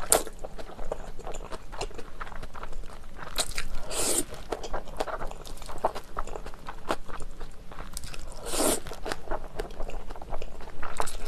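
Close-miked eating of jajangmyeon: noodles slurped in with long sucking rushes at the start, about four seconds in and near nine seconds. Between them come wet chewing and smacking clicks.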